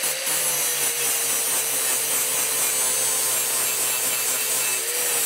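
Angle grinder with an abrasive disc grinding and smoothing a cut aluminum edge. The motor whine is steady, sagging slightly under load and lifting briefly near the end.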